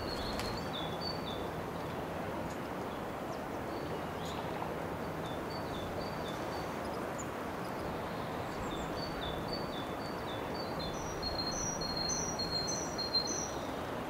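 A small songbird singing short phrases of clear notes alternating high and low. The phrases come several times, the liveliest run near the end, over a steady background hiss.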